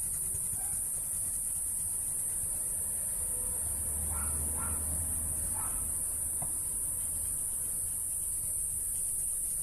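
Crickets chirping in a steady, unbroken high-pitched chorus, with a faint low rumble and a few faint distant calls about four to six seconds in.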